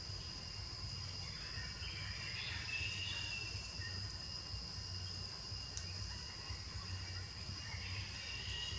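Forest ambience: a steady, high-pitched insect drone, with a few brief chirps over it about two to three seconds in and a low rumble underneath.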